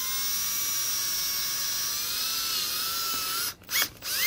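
Cordless drill with a 5/16-inch twist bit drilling a hole through a plastic dash trim panel: the motor's whine rises as it spins up, runs steadily while the bit cuts, and stops about three and a half seconds in, followed by two short bursts of the drill near the end.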